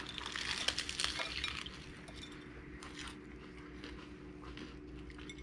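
Biting into a crispy fried flour-tortilla taco: a dense crunching crackle for about the first second and a half, then a few faint crunches while chewing.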